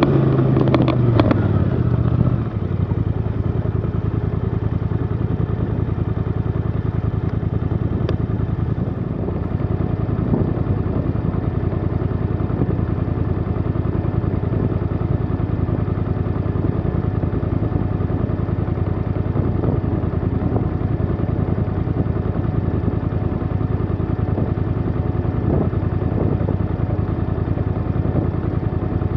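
Snowmobile engine coming off the throttle, its pitch dropping over the first couple of seconds, then idling steadily while the sled sits stopped.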